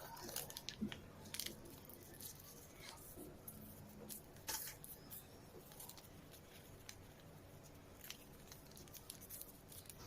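Sheet of paper rustling and crinkling as it is handled and folded, in faint scattered crackles with a few sharper ones about half a second in and about four and a half seconds in.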